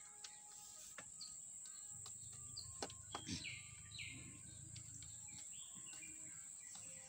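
Faint bird chirps, several short falling calls spread through, over a steady high-pitched whine, with a few faint clicks.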